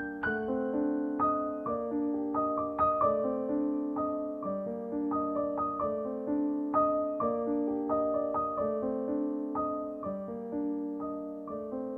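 Background piano music: a steady run of notes, about two a second, over held lower notes.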